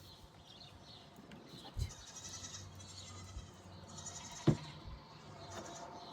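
Nigerian Dwarf goats bleating, several short high-pitched calls, with two dull thumps, the louder one about four and a half seconds in.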